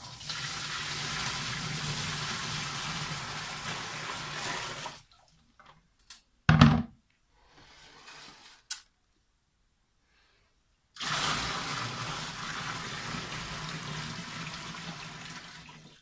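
Water poured by hand from a bucket into the empty plastic tub of a Mika 6 kg semi-automatic top-load washing machine, a steady splashing rush for about five seconds. A single loud thump follows. After a pause a second pour, from a basin, runs for about five seconds and tapers off near the end.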